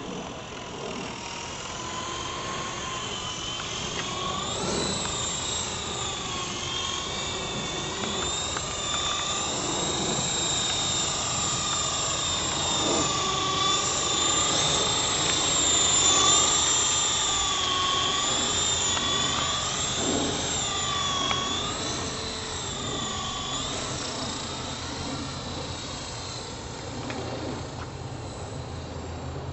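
E-flite Blade CP electric radio-controlled helicopter in flight: a steady motor and gear whine with rotor whir, its pitch wavering up and down as it manoeuvres. It grows louder as it comes close about halfway through, then fades as it climbs away.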